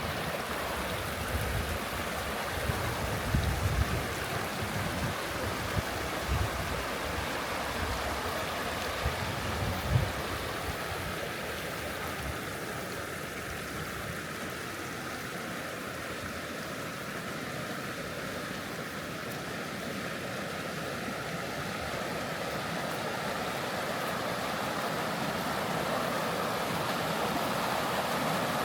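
Creek water flowing steadily over gravel and around old tree trunks, a continuous rushing. A few low thumps are heard in the first ten seconds.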